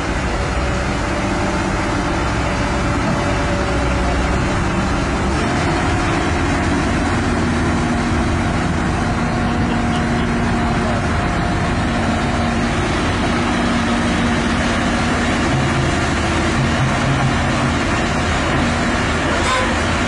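Diesel engine and hydraulics of a Caterpillar 319D LN excavator running steadily under load, with a low rumble and a hum that shifts in pitch now and then.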